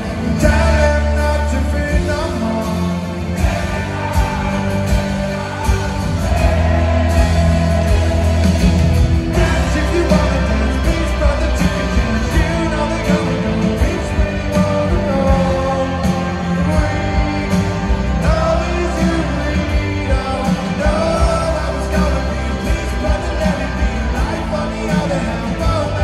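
A live rock band playing with a male lead singer and guitar over a steady drum beat, heard from the crowd in an arena.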